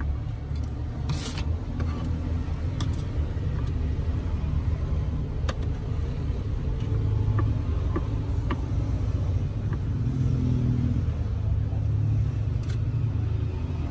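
Road traffic running, a steady low rumble that swells past the middle as a vehicle goes by. Over it, a few light ticks of a knife slicing through banana onto a plastic cutting board.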